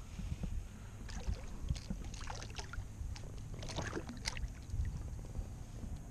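A small hooked fish splashing and thrashing at the water's surface beside a kayak as it is pulled in by the line, a scatter of short sharp splashes between about one and four and a half seconds in, over a low steady rumble.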